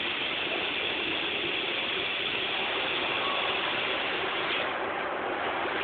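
Mechanical running noise of a Supertec G25P-50NC CNC grinder cell with its robot arm loading parts. A steady clatter carries a high hiss that drops away about four and a half seconds in.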